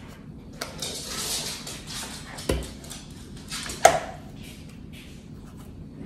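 Small handling noises as a carton of heavy whipping cream is opened: a soft rustle, a dull thump about two and a half seconds in, and a sharp click, the loudest sound, just before four seconds in.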